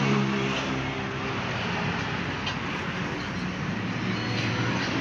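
Steady engine hum over street traffic noise, with no sharp knocks or clear events.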